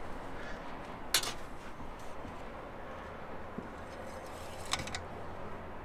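Quiet steady outdoor background with two brief sharp scrapes or clicks, one about a second in and one near the end, as a metal engine-oil dipstick is wiped with a cloth and slid back into its tube to check the oil level. The engine is off.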